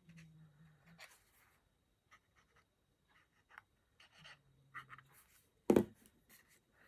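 Hands handling and gluing card stock: faint paper rustling, scratching and small ticks, with one louder knock on the work surface near the end.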